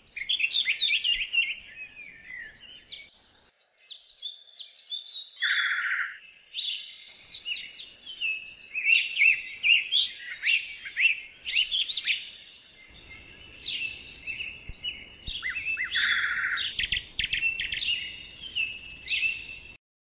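Birds chirping and singing in quick, high, overlapping calls, with a short lull a few seconds in.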